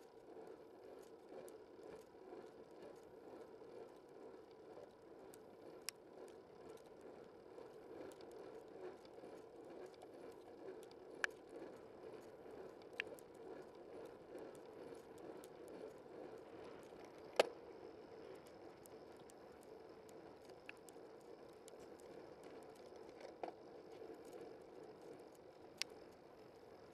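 Bicycle riding along a road, heard from a camera on the bike: a steady, low-level rumble of tyres and wind. Scattered clicks and ticks from bumps and rattles cut through it, the sharpest about two-thirds of the way in.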